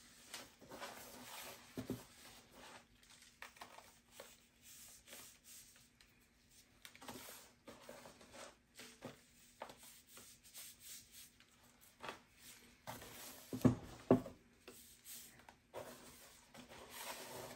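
Gloved hands rubbing a dry salt cure into a slab of raw pork belly in a plastic container: soft, irregular scraping and rustling. A few dull thumps about three-quarters of the way through are the loudest sounds.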